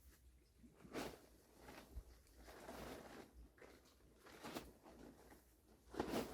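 Faint, irregular rustling noises: a handful of short bursts, the loudest near the end.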